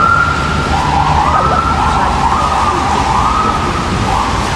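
Emergency vehicle siren wailing in repeated rising sweeps, about one a second, over the low rumble of city street traffic. The siren stops near the end.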